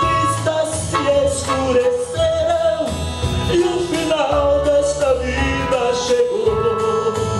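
A man singing a sertanejo ballad live, his voice wavering in a melodic line over electronic keyboard accompaniment with a steady beat.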